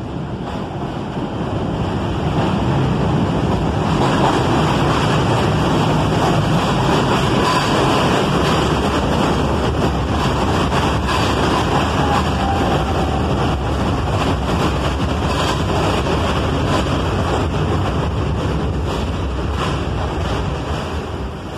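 R68 subway train pulling into an elevated station, a steady rumble of steel wheels on the rails that builds over the first couple of seconds as the cars pass close by, with faint squeals partway through, and eases toward the end.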